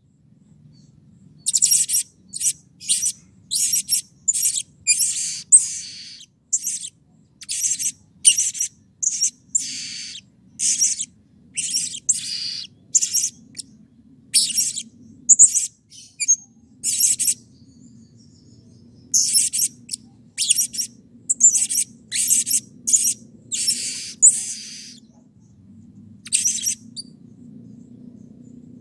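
Blue-crowned hanging parrot (serindit) giving a long series of short, shrill, high-pitched calls, about one to two a second, with a brief pause partway through and only one more call in the last few seconds. A faint low rumble runs underneath.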